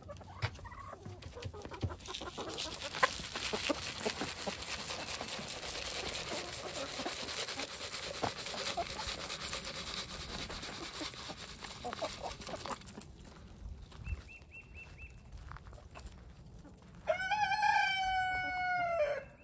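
A rooster crows once near the end, a single call of about two seconds. Before it comes a long stretch of rustling noise dotted with small clicks.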